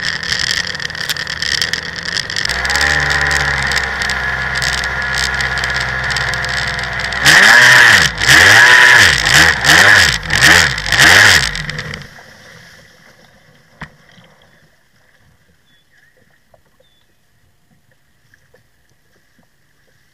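Jet ski engine running with rushing water noise, then settling to a steady note. About seven seconds in it is revved in several sharp rising-and-falling blips, the loudest part, as the ski comes in to the shore. The engine cuts off about twelve seconds in.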